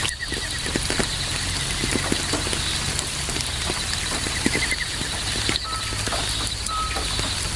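Steady night rain, with scattered drops pattering on surfaces, and crickets trilling in fast pulses. Near the end a short high note repeats a few times.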